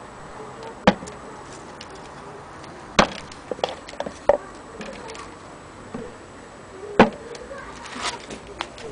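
Wooden gramophone case knocking as it is handled: three sharp knocks, with a few lighter taps between them.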